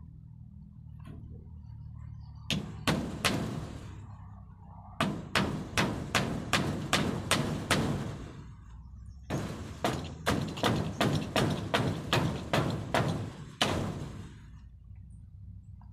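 Hammer striking the wooden frame of a rabbit pen, in three runs of steady blows at about two to three a second: a short run, then two longer ones.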